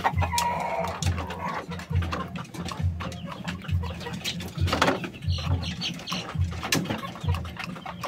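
Rooster pecking feed from a plastic bowl: quick irregular clicks of the beak on the bowl, with low clucking. A low throb repeats about once a second underneath.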